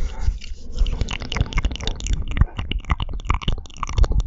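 Close-miked chewing of marshmallows: sticky, wet mouth sounds with a quick run of small clicks and smacks over soft low thumps.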